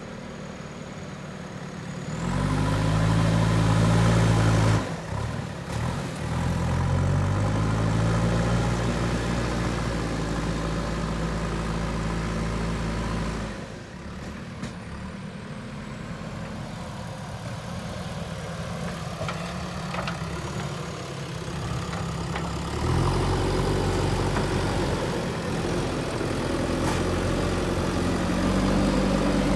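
JCB 3DX backhoe loader's diesel engine running, its pitch rising as it revs up about two seconds in, dipping briefly near five seconds, then dropping to a lower idle for several seconds before revving up again.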